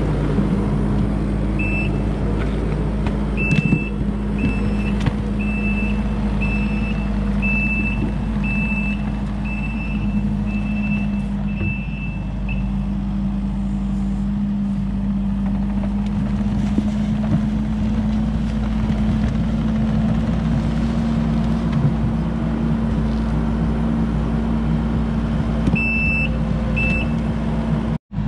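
Kubota SVL75-2 compact track loader's diesel engine running steadily under work, with its reversing alarm beeping about once a second for roughly ten seconds early on and twice more near the end.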